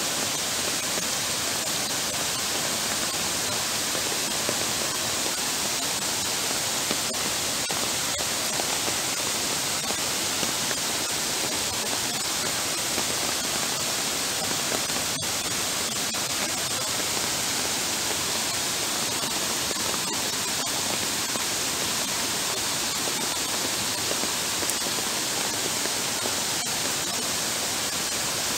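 Heavy downpour: a steady, dense hiss of rain falling onto floodwater running over a paved path.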